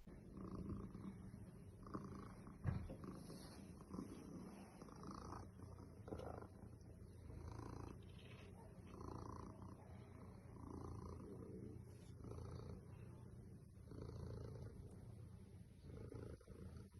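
Domestic cat purring close to the microphone, in even swells about every second and a half, with one brief knock about three seconds in.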